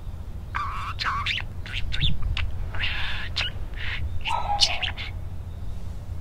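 Pet budgerigar chattering in about four short bursts of chirps and warbling, over a steady low rumble.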